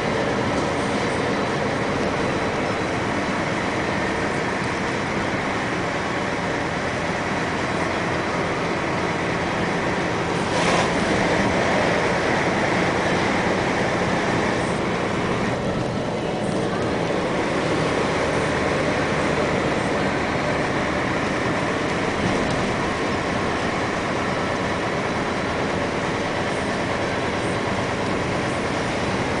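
Steady engine and road noise of a bus, heard from inside the cabin, with one brief knock about a third of the way in.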